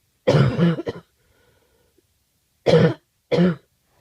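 A person with a bad cough coughing in fits: a quick double cough near the start, then two more short coughs close together near the end.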